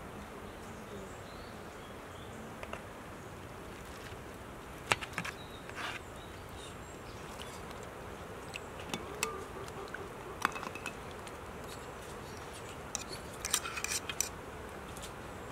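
Metal ladle and spoons clinking against metal serving bowls and platters: scattered single clinks, with a cluster near the end. They sound over a steady outdoor background hiss.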